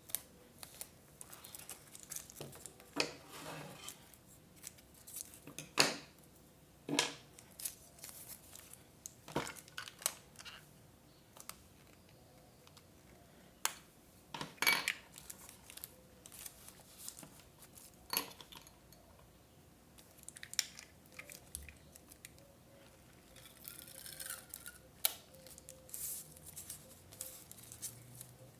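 Scrapbooking paper and tools being handled: irregular short snips, taps and rustles.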